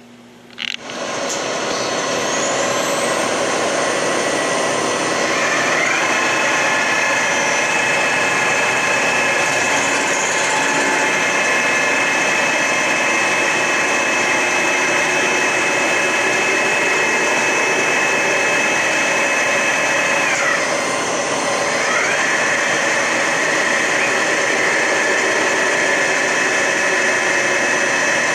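Boring/milling machine starts up, its spindle speeding up with a rising whine, then runs steadily with a high whine that falls away about two-thirds through and rises back a second or so later. Its face-milling cutter is taking a light first pass of a couple of thousandths off a warped original Ford Model A cylinder head.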